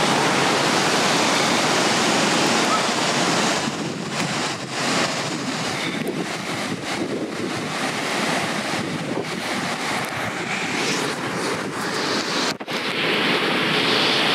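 River in flood: fast, muddy floodwater rushing, a steady dense roar of water, with wind buffeting the microphone.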